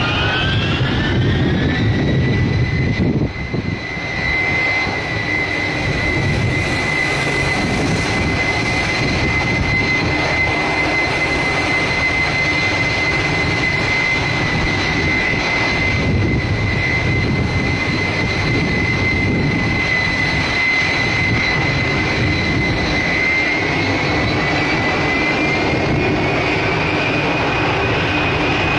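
Four Soloviev D-30KP turbofans of an Ilyushin Il-78 tanker running on the ground with a loud, steady roar and a whine. The whine rises in pitch over the first two seconds, holds steady, then climbs again near the end as the engines spool up.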